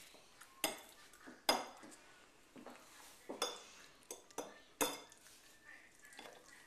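Metal fork clinking against a ceramic dinner plate as food is picked up: about half a dozen sharp, irregularly spaced clinks, each with a short ring.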